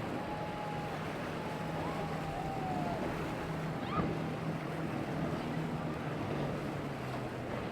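Boat engine running steadily with a low hum, over the wash of waves and wind. A short sharp click comes about four seconds in.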